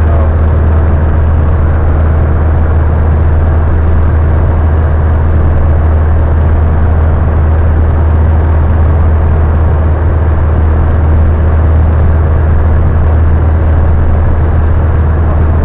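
Engine and propeller of a high-wing light aircraft in flight, heard inside the cabin as a loud, steady drone with a deep low hum.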